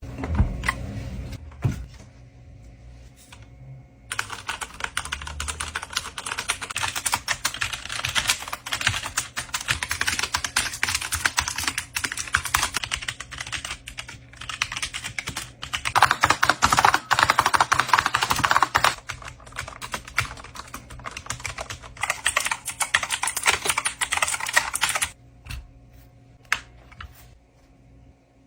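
Computer keyboard being typed on: rapid, continuous key clicks that start about four seconds in, grow louder and denser in the middle, and stop a few seconds before the end, leaving a couple of single key presses.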